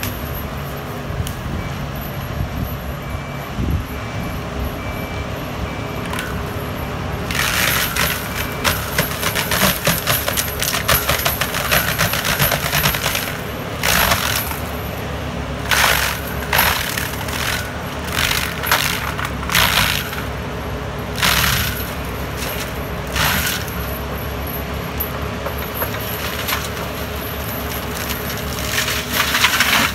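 Takeuchi TB2150 excavator's diesel engine and hydraulics running steadily while its FAE UML/HY/125VT drum mulcher head grinds standing trees and brush. The wood chewing comes in loud bursts, repeating from about a quarter of the way in through the middle and once more near the end.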